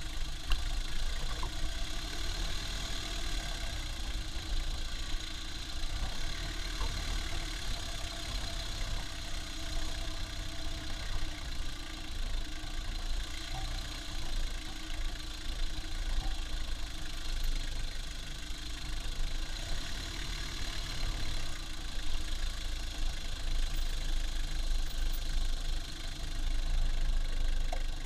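Toyota Lucida's turbodiesel engine running steadily, heard from beneath the van's floor, growing a little louder near the end.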